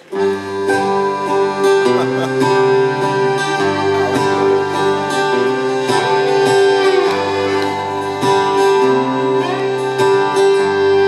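Live band playing the instrumental introduction to a waltz, with guitar prominent over held notes and a bass line that changes chords every second or two; no singing yet.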